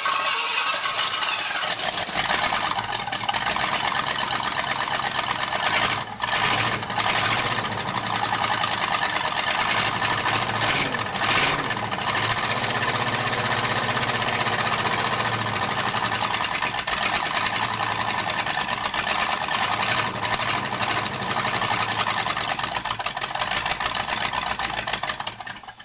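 Ford 351 V8 of a 1978 F-150 running loud and rough after a first start, revving a little unevenly, then cutting off suddenly near the end. It is missing on a cylinder: the spark plug wire on number 8 is off.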